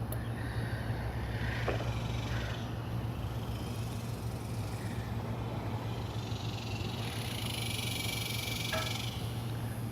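Steady low hum of an air conditioner running, with a faint high hiss swelling for a couple of seconds near the end.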